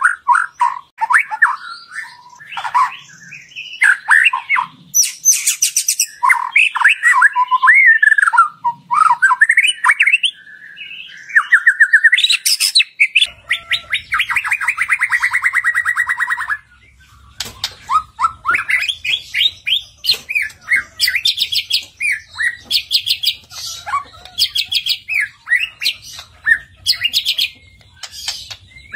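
White-rumped shama (murai batu) singing: a rapid run of varied whistled phrases and trills, then a long buzzy rattle about 13 seconds in that lasts some three seconds. After it the phrases come quieter and more broken, over a faint low hum. This is the kind of shama song played to prompt a caged shama to sing.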